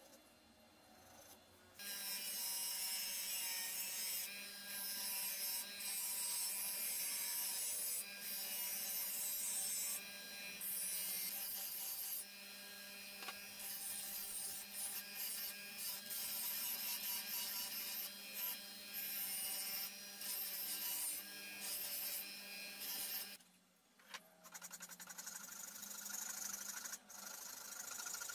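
A bench grinder's motor hums steadily while a wooden hammer handle is held against its spinning wheel, giving a harsh grinding hiss that starts about two seconds in and dips briefly as the wood is lifted. Near the end the grinding stops, and a flat file rasps back and forth on the wooden handle clamped in a vise.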